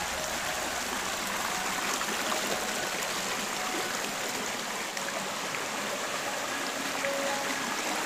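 Hill stream water flowing and splashing steadily, with faint background music over it.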